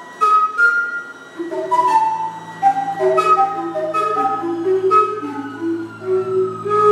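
Pipes of a barrel-organ sound sculpture playing a melody of short, flute-like notes. A low steady drone comes in about a second and a half in. Near the end a long pipe tone slides slowly down in pitch.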